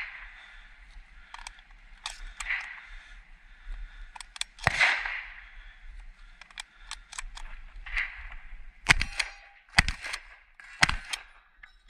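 Shotgun firing 00 buckshot: one shot about five seconds in, then three more shots about a second apart near the end, with sharper, smaller clicks scattered between them.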